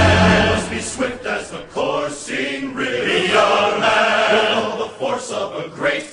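Choral music: a choir of voices chanting, sung throughout.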